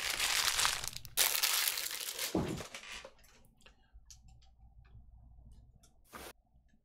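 Packaging crinkling and rustling loudly as it is handled, for about three seconds, with a dull thump partway through. Then a few faint clicks and one sharper tap near the end.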